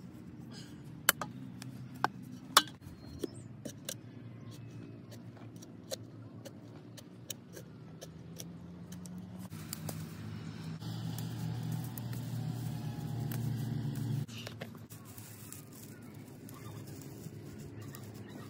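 Sharp clicks and scraping of a small hand digging tool working into a clay bank, then a louder stretch of rustling as fern fronds are pulled and broken off, over a steady low hum.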